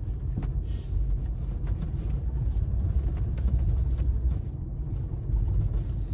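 A car driving, with a steady low rumble from the engine and tyres on the road.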